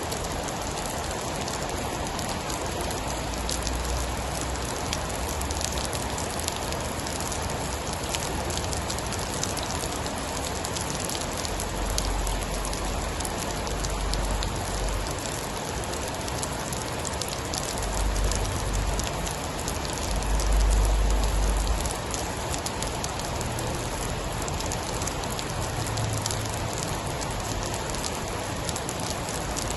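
Steady heavy rain with scattered sharp drop ticks. A few deep low rumbles swell and fade, the strongest about two-thirds of the way through.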